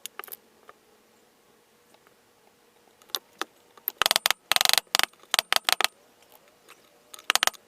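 A series of sharp clicks and clatters, like small hard objects being handled: a few single clicks, a dense burst about four seconds in, and a short cluster near the end.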